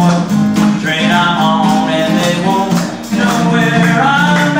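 Acoustic guitar fingerpicked in a folk pattern, with a man singing over it; the playing dips briefly about three seconds in.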